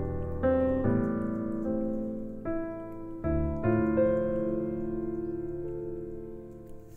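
Background piano music: chords struck every second or so and left to ring and fade.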